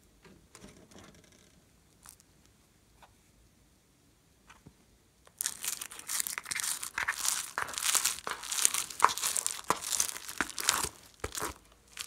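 A thin plastic tray of foam-bead slime being handled and pulled at, crinkling and crackling densely from about five seconds in, after a few faint clicks.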